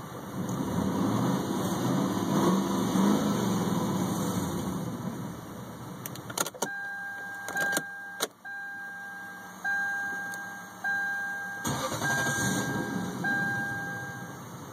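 A 1998 Lexus LS400's 1UZ V8 cranking and turning over for several seconds without settling into a run. It is the car that won't start. Then a few sharp clicks, and a repeating two-note electronic warning chime from the car.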